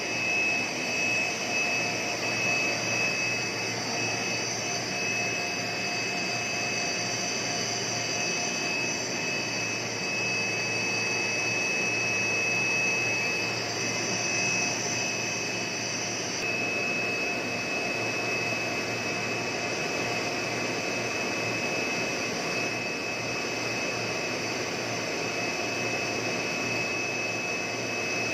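Plastic blown-film extrusion machinery running: a steady mechanical drone with a constant high-pitched whine over it. The highest hiss eases slightly about halfway through.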